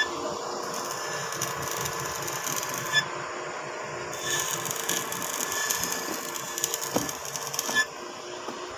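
Electric arc welding on rusty steel plate: a steady crackling sizzle with a short lull about three seconds in, then cutting off near the end.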